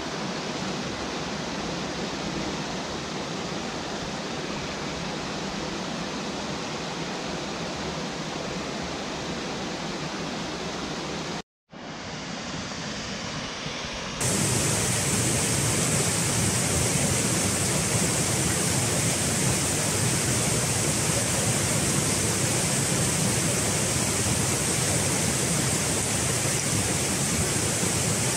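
Rushing water of a rocky mountain stream cascading over boulders and small waterfalls, a steady noise. It cuts out for a moment about eleven seconds in, then returns louder and brighter a few seconds later.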